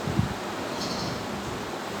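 A single short, low thump about a quarter second in, over a steady hiss.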